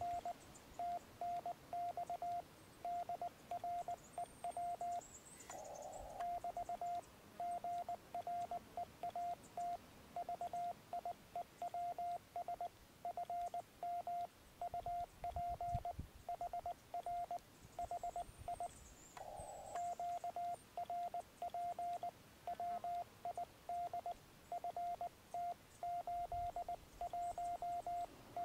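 Morse code (CW) from a Yaesu FT-817 transceiver during a ham radio contact: a single steady tone keyed on and off in dots and dashes, sending a signal report and rig details. Two short bursts of radio hiss break in, about 6 s and 19 s in.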